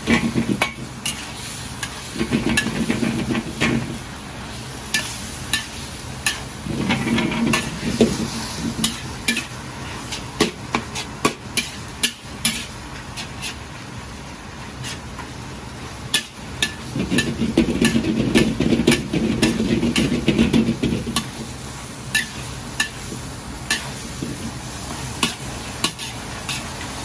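A metal wok spatula scrapes and knocks against a carbon-steel wok as a large batch of sliced pork stir-fries with a steady sizzle. Sharp clanks come every second or so, and there are three longer bouts of scraping and tossing, the longest in the second half.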